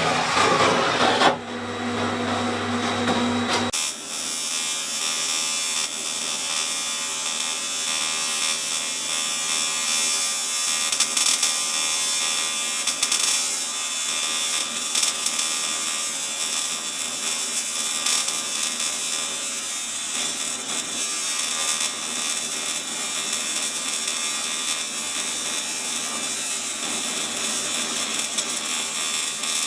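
AC TIG welding arc on cast aluminium, a steady buzzing hiss that holds on for a long weld pass. It takes over about four seconds in, when a louder, rougher rushing sound cuts off.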